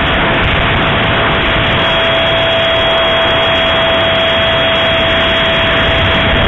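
The 64 mm electric ducted fan of a HobbyKing T-45 Hawk model jet in flight, heard through a keychain camera on its wing. There is a steady whine that holds its pitch, at constant throttle, over loud, even air rush.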